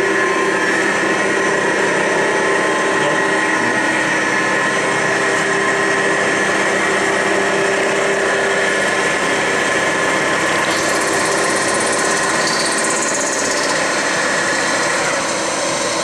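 Boring/milling machine running steadily as its large fly-cutter takes a facing pass across a warped Ford Model A cylinder head, with a steady high whine over the machine noise. The whine drops out near the end.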